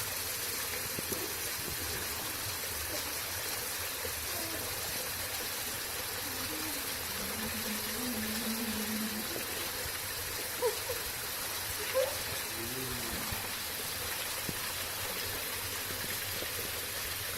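Steady rush of a waterfall running with little water, with faint voices in the distance now and then.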